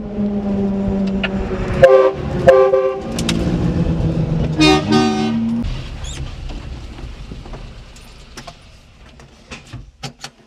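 A mini truck's small engine running, heard from inside the cab, with two short horn toots about two seconds in and a longer honk about five seconds in. After that the engine sound fades, leaving only a few faint clicks near the end.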